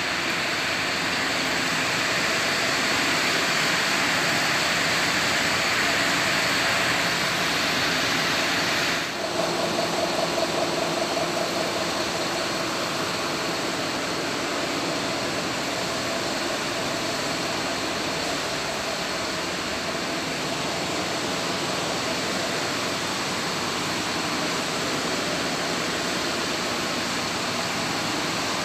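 Bus engine idling, a steady mechanical noise that changes abruptly about nine seconds in.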